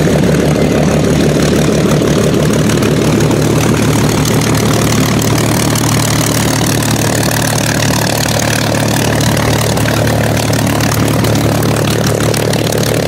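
Supermarine Spitfire's V12 piston engine idling steadily as the fighter taxies on the ground.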